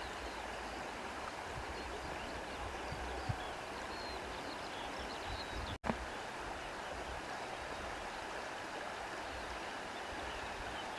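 A stream of water flowing steadily, with a momentary cut-out a little past halfway.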